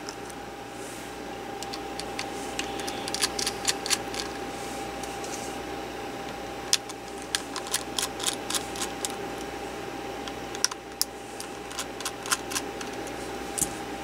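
Scattered small clicks and taps of a laptop hard drive being handled and a precision screwdriver turning out the mounting studs on its side, over a faint steady hum.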